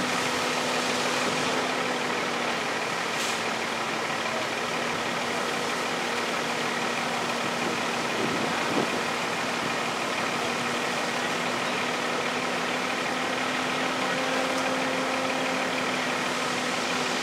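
Fire engine's diesel running at a steady, unchanging pitch with a constant hum, driving its pump to supply the charged hose lines.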